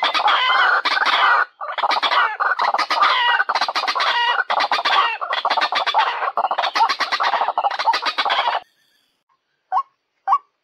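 White-breasted waterhen calls used as a trapping lure: a dense run of loud, harsh croaking and clucking with a brief break about a second and a half in, which stops abruptly near the end. About a second later come two short single call notes.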